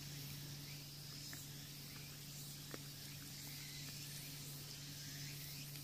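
Quiet background: a steady low hum and faint hiss, with a few soft clicks, one sharper near the middle.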